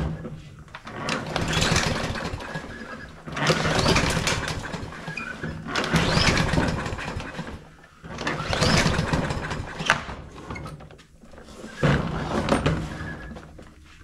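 Pull-cord recoil starter of a Troy-Bilt push mower's Briggs & Stratton engine yanked five times, each pull cranking the engine over without it catching. The mechanic takes the failure to start for most likely a carburetor problem.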